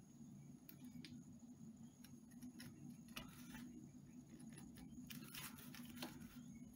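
Faint scratching and light clicks of a pen-like tool pressed hard along the edge of a plastic ruler over washi tape on paper, over a low steady hum.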